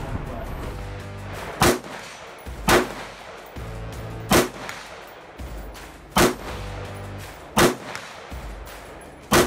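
Six rifle shots fired one at a time, one to two seconds apart, over background music.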